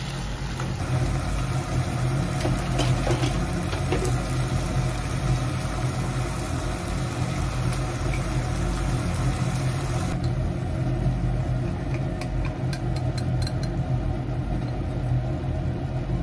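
Steady low mechanical hum over pork and onions simmering in a pan, with a few light clicks of chopsticks against a glass bowl as egg is beaten.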